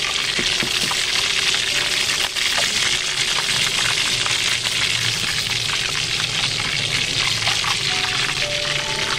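Chicken drumsticks frying in hot oil in an aluminium wok: a steady, even sizzle, with a few light taps of metal tongs against the pan.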